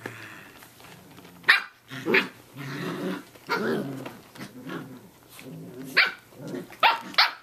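Samoyed puppies about six weeks old play-fighting: short high-pitched barks and yips, with growling in between, and a cluster of barks near the end.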